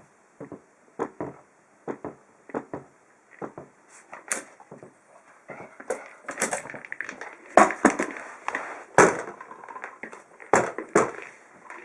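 A series of irregular knocks and rattles, sparse at first, then busier and louder from about five seconds in, with the loudest thumps near the middle.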